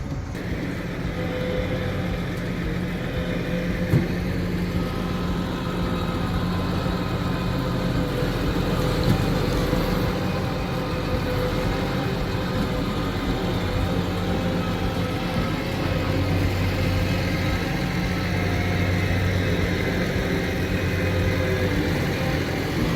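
Harvest machinery running steadily under load, a deep engine drone with a constant mechanical hum, and a single sharp knock about four seconds in.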